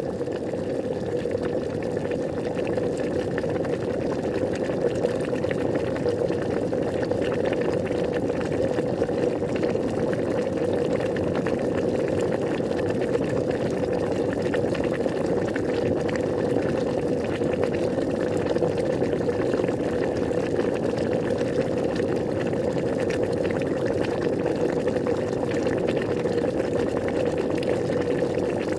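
Water boiling: a steady, unbroken bubbling that holds the same level throughout.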